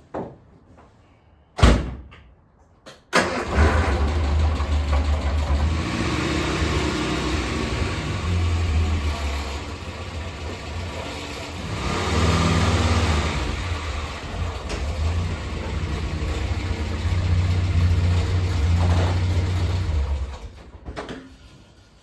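A car door slams, then a Morris Minor's A-series four-cylinder engine starts about three seconds in and runs as the car is driven out and back, the revs rising and falling, before it is switched off near the end. The drive tests the newly adjusted clutch pedal free play.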